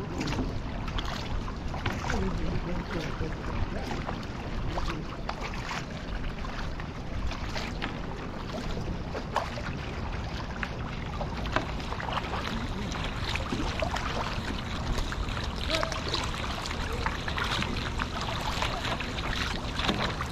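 Water rushing and splashing around a kayak's bow as it moves through choppy water, with the repeated splashes of kayak paddle blades dipping and lifting out of the water.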